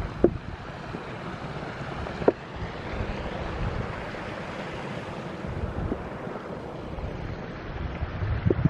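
Wind rumbling and buffeting on the microphone over a steady rushing noise, with two sharp knocks, one just after the start and one about two seconds in.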